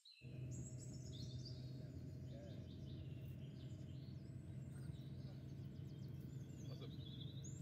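Birds chirping and twittering over a steady low hum; the sound comes in suddenly just after the start.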